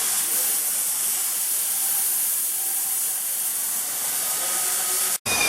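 Steady hiss of rushing air that cuts off abruptly about five seconds in.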